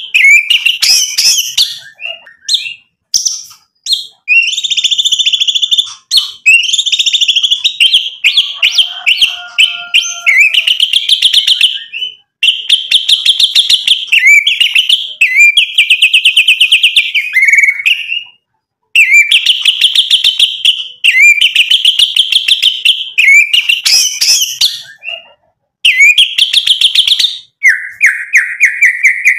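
White-rumped shama (murai batu) singing loudly: phrase after phrase of fast repeated notes and trills, with short pauses between, ending in one long, steady whistled note.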